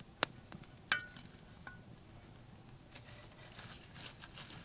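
Hot coals being put onto the lid of a cast-iron Dutch oven: a few sharp metallic clinks in the first second or so, one of them ringing briefly, then light scraping and crackling of the coals.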